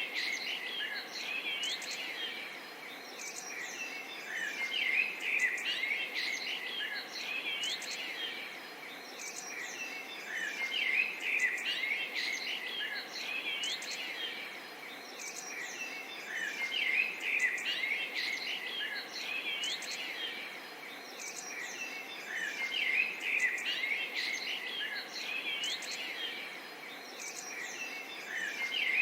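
Many small songbirds chirping and twittering at once, the chorus swelling and thinning every few seconds, over a soft, steady murmur of running water.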